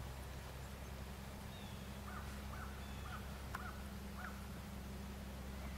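Faint bird calls: five short calls in quick succession, about half a second apart, over a steady low background hum.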